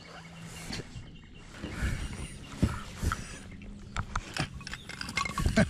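Irregular mechanical clicks and knocks from fly-fishing tackle in a kayak while a hooked bass is being brought in, with a cluster of sharper knocks near the end.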